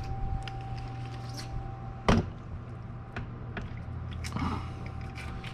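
Scattered light clicks and taps of a socket on a long extension bar being worked up to start a bolt in a tight spot, with one louder knock about two seconds in, over a steady background hum.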